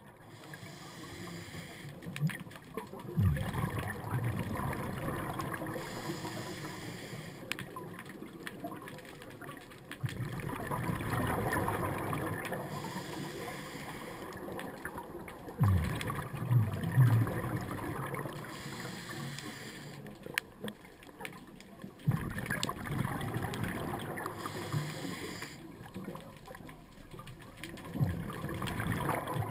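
Underwater sound of a scuba diver breathing through a regulator: a burst of bubbling exhaust every six seconds or so, with quieter water noise between breaths.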